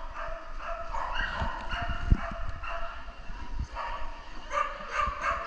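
Dogs barking and yipping over and over, several calls overlapping, with one short thump about two seconds in.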